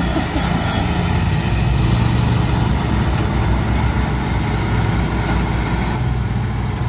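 Engine of a shed delivery vehicle running steadily, a low rumble that grows a little louder about two seconds in and eases off near the end.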